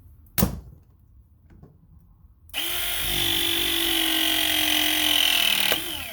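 Ridgid ProPress battery-powered hydraulic press tool crimping a half-inch copper press fitting. A sharp click comes about half a second in. From about two and a half seconds in, the motor runs steadily for about three seconds through the pressing cycle, then ends with a click and a falling whine as it releases and winds down.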